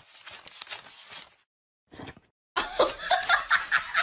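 A stack of paper banknotes riffled under a thumb: a rapid, irregular run of quiet papery flicks. After a short pause comes a louder burst of quick, choppy laughter.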